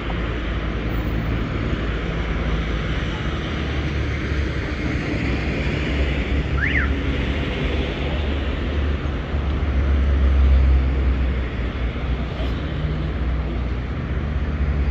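City street traffic: a steady mix of vehicle engines and tyre noise with a deep rumble that swells about ten seconds in. A brief high chirp rises and falls about seven seconds in.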